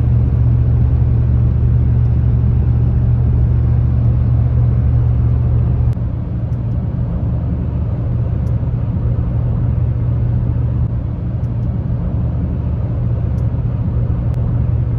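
A car on the road: a steady, loud low drone of engine and road noise, easing slightly about six seconds in.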